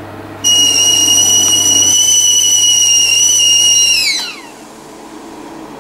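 Stovetop whistling kettle whistling at the boil. A steady, high whistle starts suddenly about half a second in, then drops in pitch and dies away about four seconds in.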